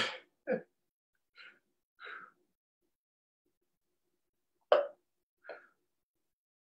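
A tired man catching his breath and drinking from a water bottle: short breaths and gulps separated by silence, then a sudden louder sound and a smaller one a little later.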